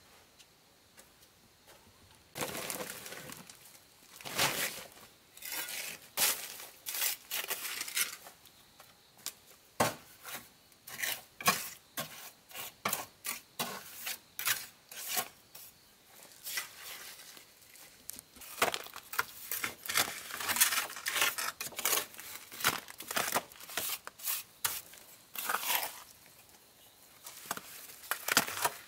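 Hand work with hard objects: irregular sharp scrapes, taps and knocks at an uneven pace, starting about two seconds in and busiest in the second half.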